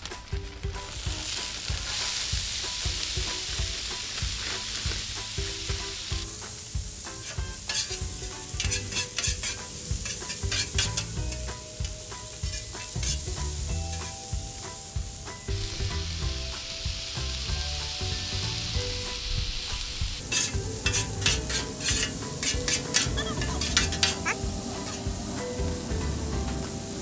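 Food frying on the hot steel plate of a 36-inch Blackstone gas griddle: broccoli florets and marinated chicken breasts sizzling with a steady hiss. Two long stretches of clicking and scraping come from a metal spatula working on the griddle plate.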